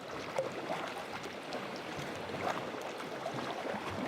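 Sea kayak being paddled: water splashing and dripping from the paddle blades, with many small splashes over a steady wash of moving water.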